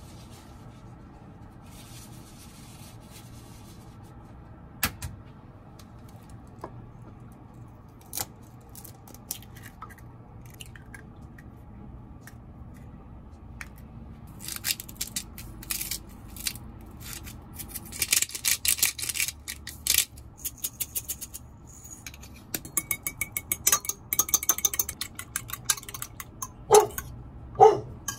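A fork beating eggs in an enamel measuring jug: rapid runs of clinking against the jug, starting about halfway through. Near the end a dog barks a few times, set off by a neighbour coming home.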